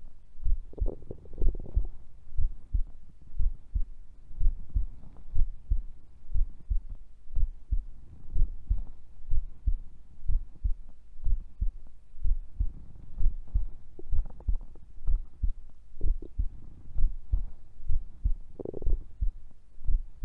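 A sleeping woman's heartbeat, a steady run of low double thumps at about one beat a second, with stomach gurgles rumbling in several times.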